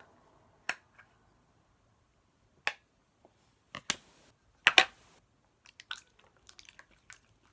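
Slime being squished and poked by hand, giving a few sharp wet clicks and then a quicker run of small clicks near the end.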